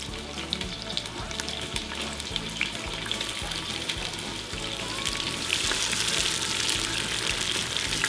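Chopped onions frying in hot oil in a potjie pot: a steady sizzle full of small crackles, getting louder about five and a half seconds in.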